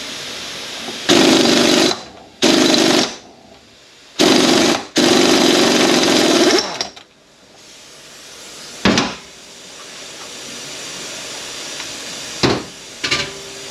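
Impact wrench hammering in four bursts on the SM465 transmission's output yoke nut to break it loose, followed by a few short metallic knocks.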